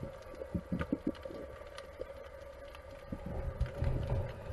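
Muffled underwater noise picked up by a diver's camera: low rumbling water movement that swells near the end, with a few soft knocks about a second in and a steady hum underneath.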